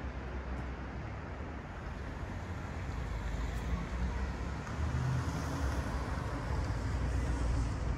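Road traffic noise with a steady low rumble of passing cars, growing louder in the second half as vehicles come closer.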